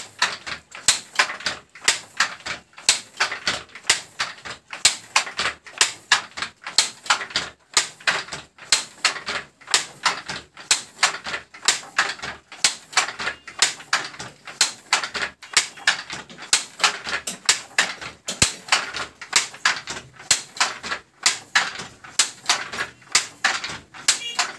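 Wooden jacquard handloom weaving silk, clacking in a steady, fast rhythm of sharp knocks as the weaver works it without pause.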